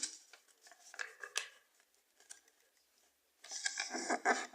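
A sheet of paper being handled and creased as it is folded by hand: a few light crinkles about a second in, then a longer spell of rustling and crackling near the end.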